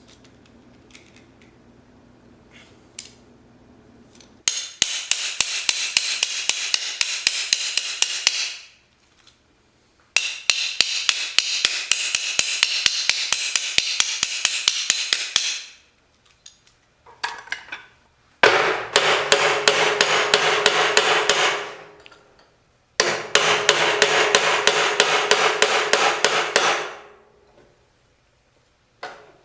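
MIG welder arc (Millermatic 211) crackling in four separate welds of about four to six seconds each, each starting and stopping abruptly, with a regular sharp crackle about five times a second.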